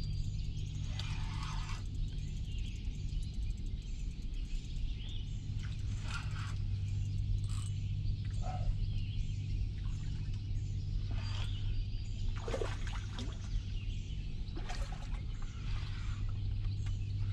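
Outdoor ambience with a steady low hum, scattered bird chirps, and several short clicks and rustles, loudest around the middle and near the end.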